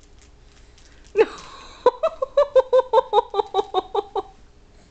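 High-pitched laughter. A sudden vocal burst about a second in, then a quick run of short rhythmic 'ha-ha' pulses, about five a second, lasting a couple of seconds.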